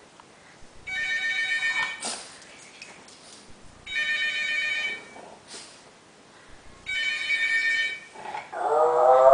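Telephone ringing in trilling bursts of about a second, three rings some three seconds apart. Near the end a French bulldog starts howling along, loudly, its pitch wavering.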